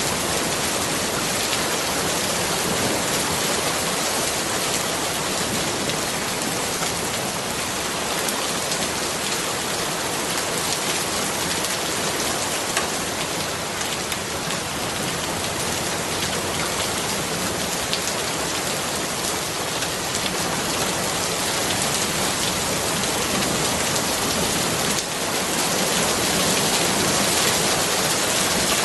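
Steady rain falling, an even, dense hiss with fine ticks of individual drops. Near the end the level dips for a moment and then runs slightly louder.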